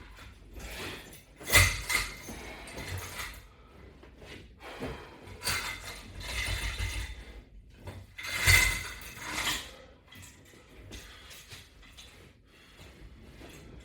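Latch bar exercise attachment and its straps creaking and rattling in uneven bursts as reps are worked, the loudest bursts about one and a half seconds in and about eight and a half seconds in.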